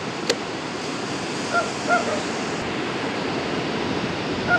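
Steady wash of surf on a beach, with one sharp knock shortly after the start and a few short, high calls around two seconds in and again at the end.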